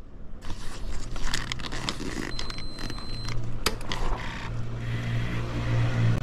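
A BMW F800GS motorcycle being switched on: a short high beep, a sharp click, then a steady low hum that builds toward the end, over rustling handling noise.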